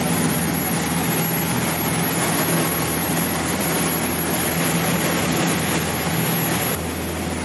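Sport-fishing boat's engines running steadily while underway, mixed with wind and rushing water. Near the end the sound changes suddenly to a slightly quieter, steadier hum.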